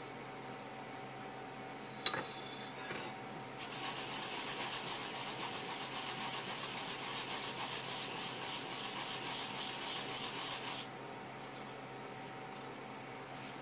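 Fresh wasabi root grated in small circles on a fine grater: a steady, rapid rasping that runs for about seven seconds and stops abruptly. A single sharp knock comes about two seconds in, shortly before the grating starts.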